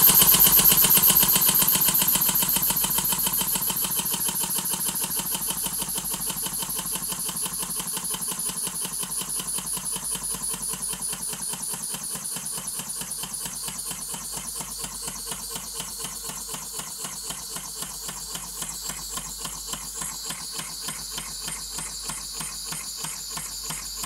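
Homemade steam engine converted from a refrigerator compressor, running with a fast, even rhythm of exhaust puffs and valve-gear clatter over a hiss. It gradually gets quieter.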